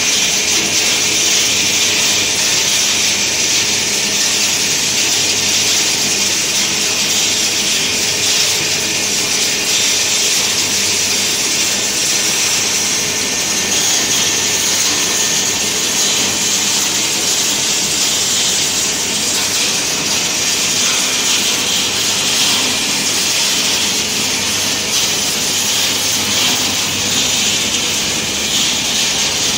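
Waste circuit board (PCB) recycling line running: loud, steady, even machine noise, mostly a hiss-like rush in the upper range with a faint steady hum beneath.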